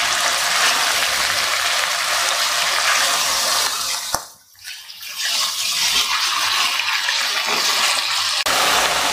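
Mutton mince and onions sizzling in hot oil in a nonstick frying pan on high flame as the mince is stirred with a silicone spatula. The sizzle drops away briefly with a click about four seconds in, then carries on.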